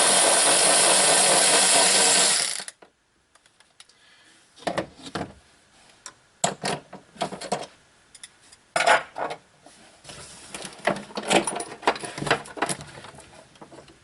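A power tool runs steadily for the first few seconds, backing out the bolt on the 12-volt battery's hold-down strap, and cuts off suddenly. After that come scattered clicks and knocks of the tool and metal parts being handled.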